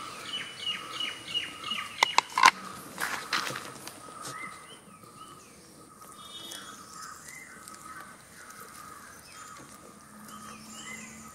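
Birds chirping: a run of about six quick repeated notes in the first second and a half, then scattered softer calls. A few sharp clicks about two to three seconds in are the loudest sounds.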